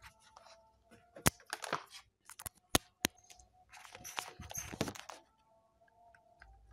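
Handling noise from the recording device being picked up and moved: several sharp clicks and taps, with two bouts of rustling.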